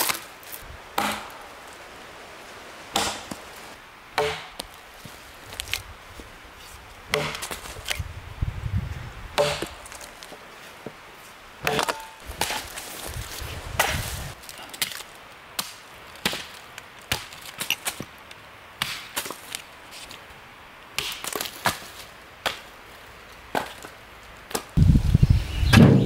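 Axe chopping and splitting firewood: a series of sharp, separate chops with splintering cracks, one to two seconds apart. Near the end come heavier wooden knocks of split logs being stacked.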